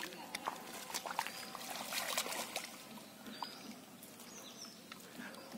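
Hands groping in shallow muddy water and wet grass: irregular splashes, squelches and trickles with sharp little clicks, and a louder stretch of splashing about two seconds in.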